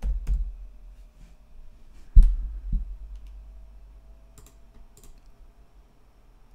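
Computer keyboard keystrokes as a crossword answer is typed in: a few scattered key clicks, a louder thump about two seconds in with a smaller one just after, then two sharp clicks later on.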